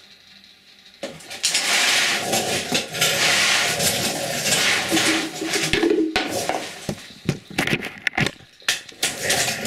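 Loud, close rustling and scraping of the camera being picked up and handled, followed by a run of sharp clicks and knocks from about six seconds in.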